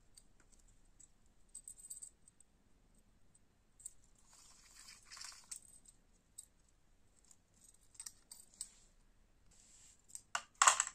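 Small metal keyring hardware on a retractable badge reel (split ring, carabiner clip and keychain) clinking and rustling as it is handled, with scattered light clicks. Near the end comes a louder metallic clatter as the reel and its rings are set down on a digital scale.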